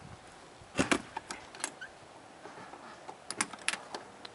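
Metal latch on a sheet-metal oven door being worked by hand: a sharp double clack about a second in, a few light clicks, then a quick run of metallic clicks near the end.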